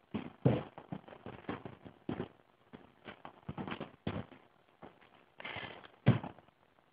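Irregular knocks and clatter, with a short hiss about five and a half seconds in and a louder knock just after it.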